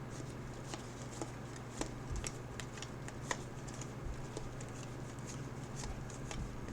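Trading cards being handled and flipped through, giving faint, irregular small clicks and ticks over a steady low hum.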